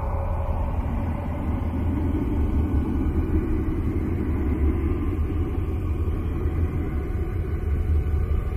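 Boat motor running steadily, a low rumble.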